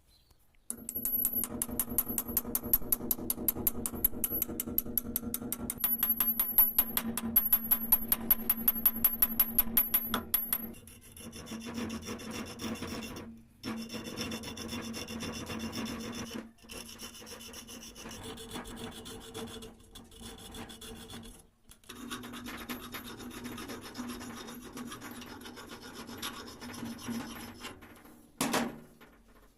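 Abrasive scraping in quick, even, repeated strokes for the first ten seconds or so. It then turns into a steadier scraping with short pauses, and ends with a brief louder scrape.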